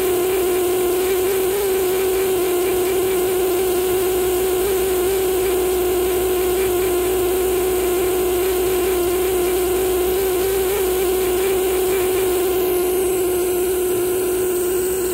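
Pneumatic air scribe buzzing steadily on one even high hum as its needle tip chips rock matrix away from fossil fish teeth.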